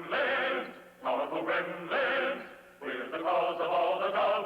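Male voices singing a comic song with musical backing, in three phrases of a second or more with short breaks between them. The sound is thin and lacks high treble, like an old cartoon soundtrack.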